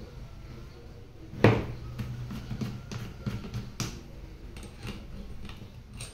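Clicks and knocks of an INGCO 20V cordless drill being handled as its keyless chuck is turned and a bit fitted, with one louder knock about a second and a half in and lighter irregular clicks after it.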